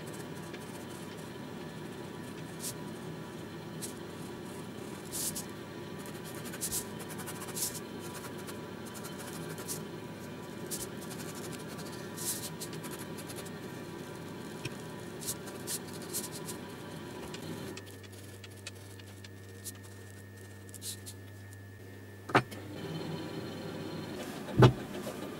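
Ballpoint pen scratching and ticking on a sheet of paper as a sketch is drawn, over a steady background hum. Near the end, two sharp knocks, the second louder, as objects are set down on the paper.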